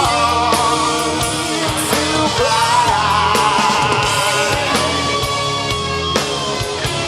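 Rock band playing live: distorted electric guitars and a drum kit, with a sustained melody line that bends and wavers in pitch.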